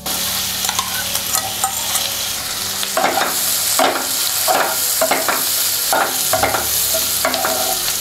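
Chopped vegetables sizzling in butter and oil in a nonstick kadai, stirred with a wooden spatula. From about three seconds in, the spatula scrapes the pan in regular strokes, about one every two-thirds of a second.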